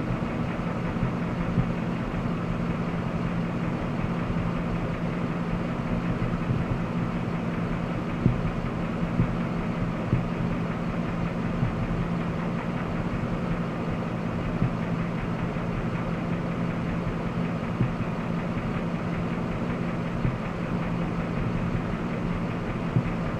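Jasper remanufactured 5.3-litre V8 running steadily, with a sharp tick standing out over the hum every few seconds at irregular intervals; this is an unidentified noise the owner is trying to trace.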